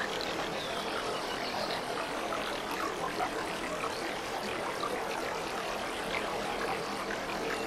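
Aquarium water bubbling from the tank's aeration and filter: a steady rush of moving water with many small bubbles popping.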